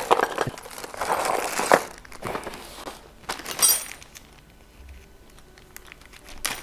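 Packaging crinkling and rustling as parts are unwrapped by hand, with sharp clicks and knocks. The handling is busiest in the first couple of seconds, with another burst about halfway through and a quieter stretch after it.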